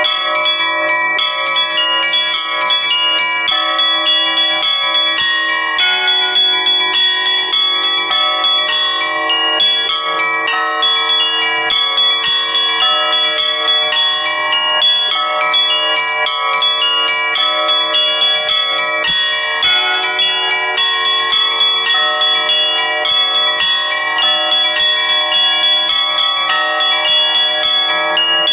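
Russian Orthodox church bells rung in a continuous peal (zvon): many bells of different pitches struck over and over, their ringing overlapping without a break.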